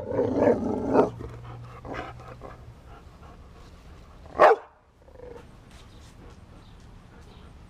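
A dog barking: a few barks in the first second or so, then one loud single bark about four and a half seconds in.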